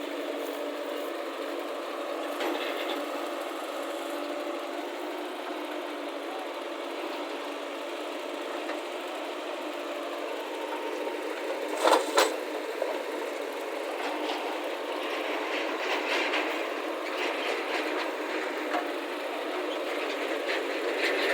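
Diesel engine of a working backhoe loader and tractor running steadily, with two sharp knocks about twelve seconds in.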